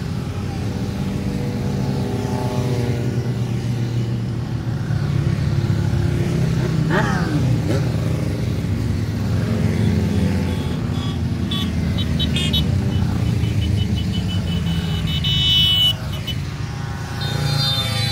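A line of motorcycles riding past one after another, their engines rising and falling in pitch as each goes by, with one revving sharply about seven seconds in. Past the middle, a high, rapid beeping sounds for a few seconds and cuts off suddenly.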